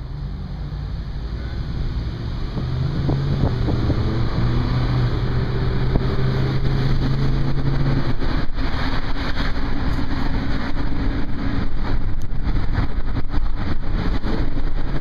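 Car engine and road noise heard from inside the moving car, growing louder over the first few seconds as it picks up speed. From about halfway on, a rapid crackle of short knocks runs over the steady noise.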